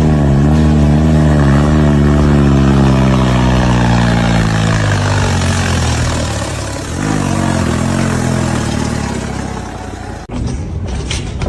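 A motor vehicle engine running with a wavering tone that starts abruptly and slowly drops in pitch over about six seconds, then a second, weaker run of engine sound.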